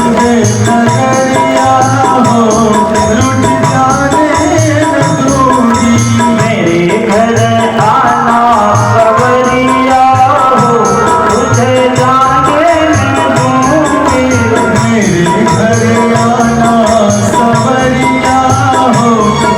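Devotional kirtan music: a bhajan melody carried over a steady, evenly repeating percussion rhythm.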